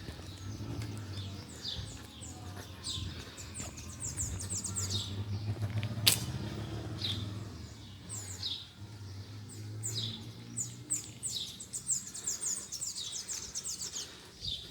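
Birds chirping: many short, quick, downward-sliding chirps, repeated throughout, over a low steady hum. A single sharp click about six seconds in.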